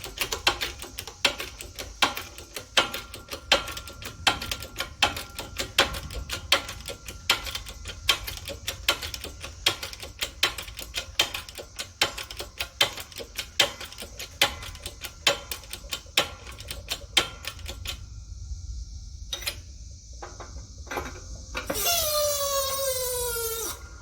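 Rapid, rhythmic metal-on-metal clicking and knocking as a rusted axle pin is worked out of a cast iron wheel. The clicking thins to a few separate knocks near the end, followed by a short squeal falling in pitch.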